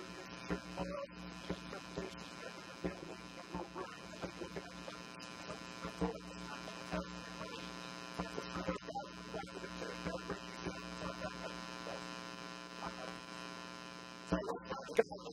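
Steady electrical mains hum, a buzz with many evenly spaced overtones, with faint indistinct sounds coming and going over it.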